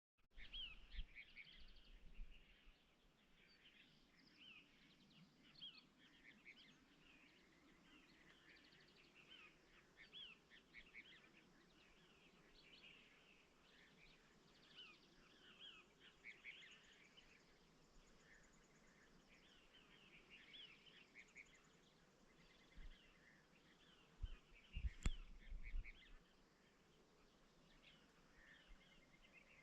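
Faint chorus of songbirds, with many short chirps and trills overlapping throughout. About 25 seconds in there is a sharp click with a few low thumps around it.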